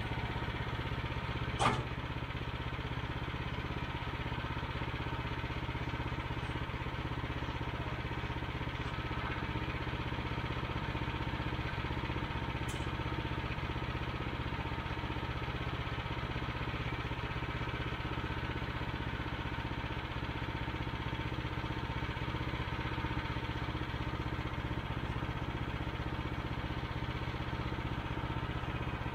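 Portable bandsaw sawmill's small gas engine running steadily at a constant speed, with a single sharp clack about two seconds in.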